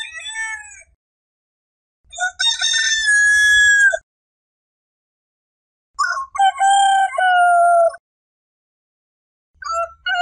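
Roosters crowing: the tail of one crow, then two full crows of about two seconds each, and a fourth starting near the end, each ending on a long held note. Dead silence separates the crows.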